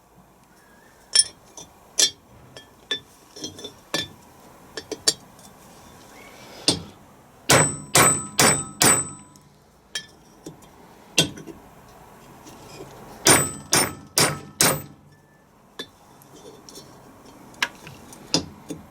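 Hammer and drift tapping a bearing race out of a Land Rover LT230 transfer-box housing: sharp metal-on-metal strikes with a short ringing tail. Scattered lighter taps, with two runs of four hard blows, one midway and one about two-thirds of the way through.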